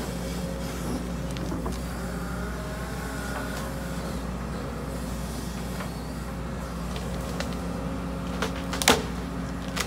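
Case CX210D excavator's diesel engine running steadily while the tiltrotator bucket digs, with a wavering hydraulic whine about two to four seconds in. A single sharp knock, the loudest sound, comes just before the end.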